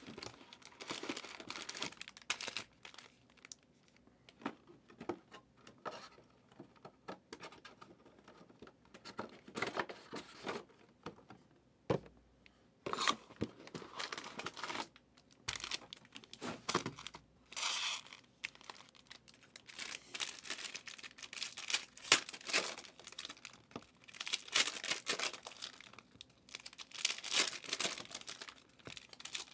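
Foil trading-card packs from Panini Prizm hobby boxes crinkling as they are handled and stacked, with tearing of packaging, in irregular short bursts.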